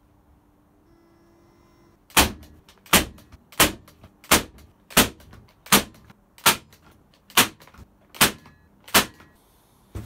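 Brad nailer driving nails into wood: ten sharp shots, one about every three-quarters of a second, starting about two seconds in.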